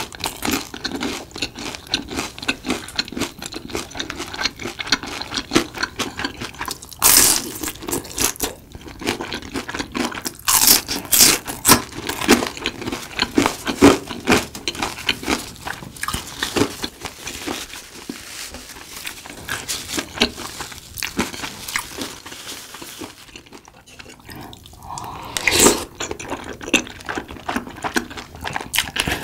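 Close-miked chewing and crunching of crispy Korean fried snacks, a dense run of crackly mouth clicks. Near the end, a louder slurp from a spoon of tteokbokki broth.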